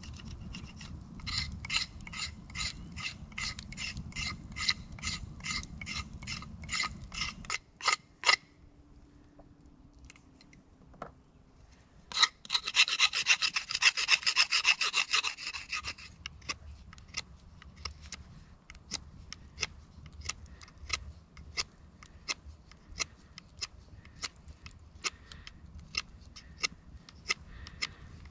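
A knife shaving a thin wooden stick: even scraping strokes about three a second for the first eight seconds, then a few seconds of fast, louder scraping midway, followed by scattered small cuts.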